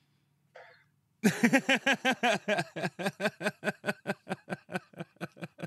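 A person laughing hard after a joke: after a short breath, a long run of quick pitched 'ha-ha' pulses, about six a second, starting about a second in and easing slightly toward the end.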